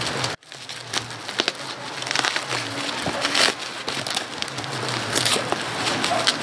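Plastic bubble wrap crinkling and crackling irregularly as it is pulled off a box by hand, with a brief gap just under half a second in.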